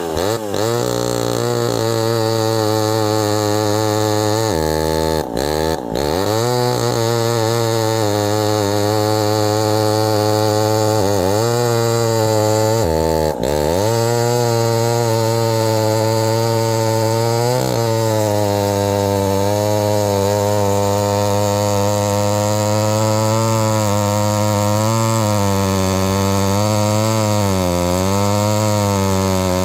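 Homelite Super XL two-stroke chainsaw, fitted with a .325-pitch nine-tooth sprocket and a 20-inch bar, running at high revs. Its pitch dips sharply and recovers several times in the first eighteen seconds, then holds with a slight waver.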